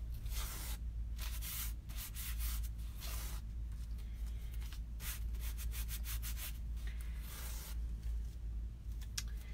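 A Chalk Couture adhesive silk-screen transfer being rubbed and patted on a fuzz cloth in a series of short, irregular scratchy strokes, dulling its tacky back before it is laid down.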